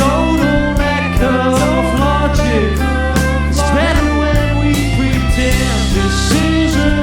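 Rock band playing an instrumental passage, with a steady drum beat under sliding melodic lines.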